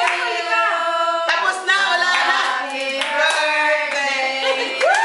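A group of women cheering with drawn-out, rising and falling calls over hand clapping.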